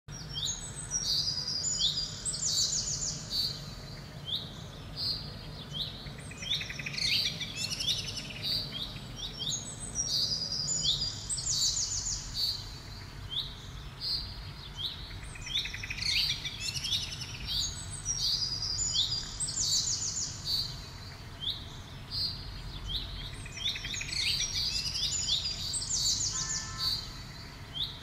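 Rose-ringed parakeets calling in repeated runs of high, shrill chirps and squawks, over a low background rumble.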